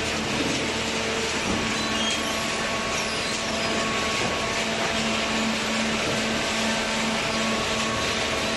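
Hydraulic carton baler running: a steady machine noise with a constant low hum and an even hiss.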